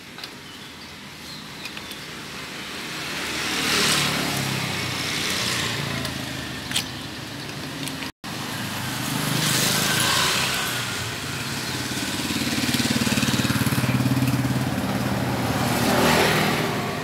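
Motor vehicles passing one after another, each swelling and fading, with a low engine hum; a single sharp click about seven seconds in.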